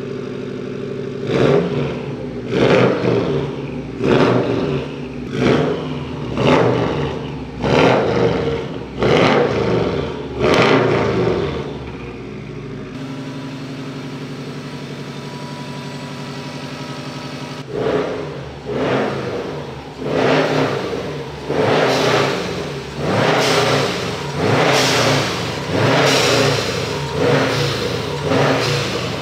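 Turbocharged 2.5-litre flat-four of a 2015 Subaru WRX STI being blipped, the revs rising and falling about once a second, with a few seconds of steady running in the middle.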